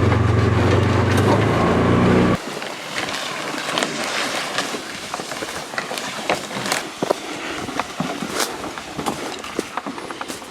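A vehicle engine runs with a steady low drone, cut off abruptly a little over two seconds in. After that come footsteps through dry brush: scattered snapping twigs, crackles and rustling.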